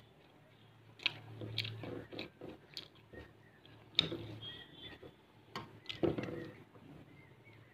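Eating rice by hand from a steel plate: fingers squishing and mixing rice against the plate, with mouth chewing sounds. Irregular sharp clicks and wet smacks, the loudest about a second in, at four seconds and around six seconds.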